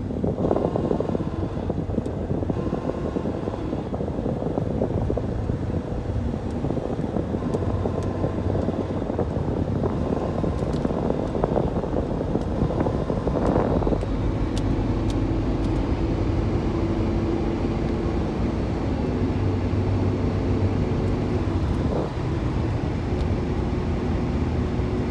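1994 Ford Ranger's 3.0-litre V6 running under acceleration, a steady engine hum whose pitch shifts, with a brief rising tone about halfway through. It carries a noise that the owner hears only when accelerating and cannot place: he wonders about the distributor or a cracked fan vibrating against the shroud.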